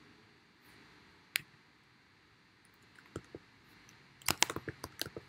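Typing on a computer keyboard: a few separate clicks in the first three seconds, then a quick run of keystrokes near the end.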